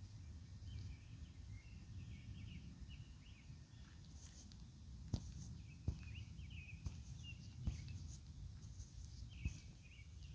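Outdoor night ambience: many short, high chirping calls go on and off over a steady low rumble, with four sharp clicks between about halfway and near the end.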